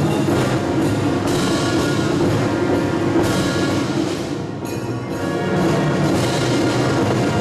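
Taiko drums played together with a band's timpani, cymbals, snare and bass drum and French horns in a loud, continuous ensemble piece, easing slightly about halfway through.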